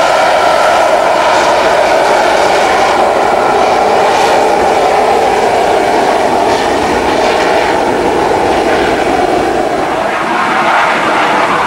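Lockheed TF-104G Starfighter's J79 turbojet running in afterburner during the takeoff roll: loud, steady jet noise that holds throughout.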